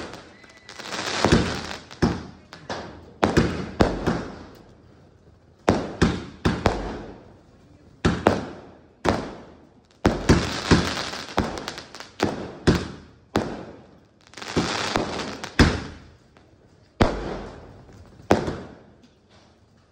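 A Terminator 3 multi-shot sky shot firework cake firing: a rapid, irregular string of sharp bangs as its shells burst overhead, each trailing away over about a second, with short pauses between volleys.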